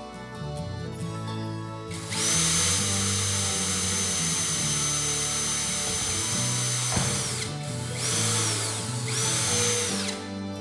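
A small high-speed power tool running with a high, steady whine for about five seconds, then two short runs of about a second each, each spinning up and winding down. Background music plays underneath.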